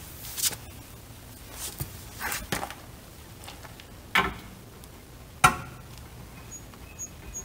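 A few separate metal clinks and knocks as a long breaker bar and deep-well socket are handled and fitted onto the rear lower shock bolt. The loudest knock comes about five and a half seconds in.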